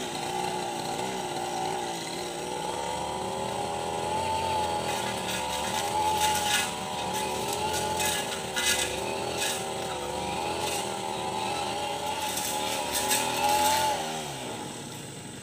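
Brush cutter with a metal blade running at high revs, its engine pitch wavering as it cuts through grass, with irregular crackles as the blade strikes the growth. Near the end the throttle is released and the engine winds down toward idle.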